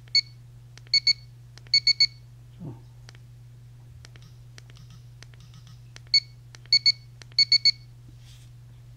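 Garrett Pro-Pointer AT pinpointer beeping as its settings are stepped through: one short beep, then two, then three, and the same one-two-three sequence again about six seconds in. Each group of beeps marks one setting level.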